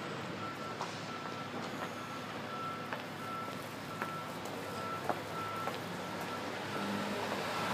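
Construction vehicle's reversing alarm beeping steadily, about three beeps every two seconds, over the steady hum of city traffic.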